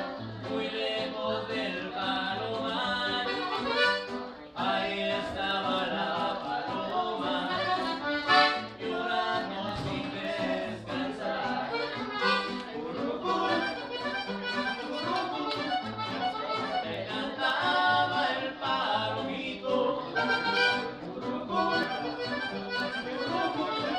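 Accordion and bajo sexto playing a Mexican regional norteño tune, with the bajo sexto's bass notes keeping a steady beat under the accordion melody.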